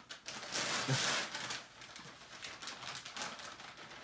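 Tissue paper and a paper gift bag rustling and crinkling as a present is pulled out, loudest in the first second and a half, then fainter crinkles, with a brief low hum about a second in.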